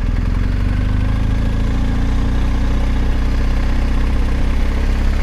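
BMW R1250 GS Rallye's 1254 cc boxer-twin engine running steadily at low revs as the motorcycle rolls slowly.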